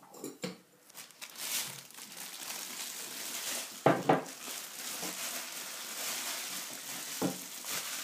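A few light clicks in the first second, then a thin plastic bag crinkling steadily as a teapot is pushed into it. There is a louder knock about four seconds in and another near the end.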